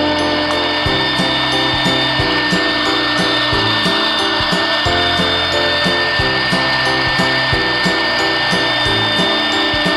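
CNC router's 3.2 kW spindle running with a steady high whine as it cuts, over background music with a steady beat.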